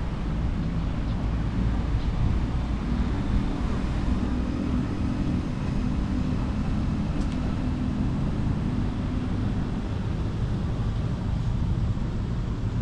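Low, steady traffic rumble, with a faint engine hum from about three to ten seconds in.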